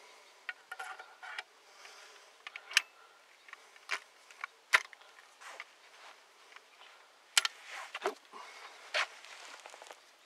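Scattered sharp metal clicks and knocks from a 12-gauge shotgun being handled as a brass shell is loaded and the action is closed. A few of the knocks are louder. No shot is fired: the shell's modified 209 primer has a rim that stands proud, which keeps the gun from locking.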